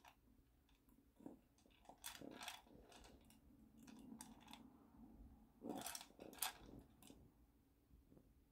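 Faint clicks, taps and scrapes of a small glass bottle being pawed and nudged across a hard floor by a cat, in short clusters about two seconds in and again near six seconds.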